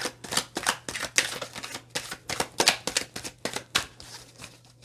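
Tarot cards being shuffled by hand: a quick, irregular run of card snaps and swishes, thinning out near the end.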